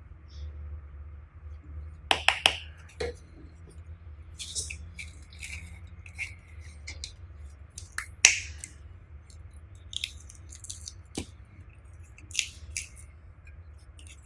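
Slime being worked by hand: sticky squelches with sharp clicking pops at irregular intervals, a quick cluster about two seconds in and the loudest pop about eight seconds in.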